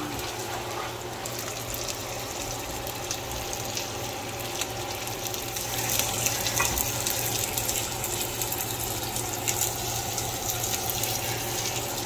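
Chicken drumsticks sizzling and bubbling in their own juices and oil in a frying pan: a steady hiss with scattered small pops, a little louder from about six seconds in.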